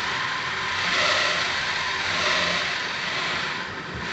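Car engine revving hard, a steady rushing noise that swells twice.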